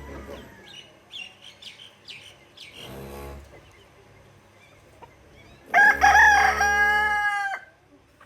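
Rooster crowing once, a loud crow of nearly two seconds about six seconds in, after a few short scattered chicken clucks and chirps.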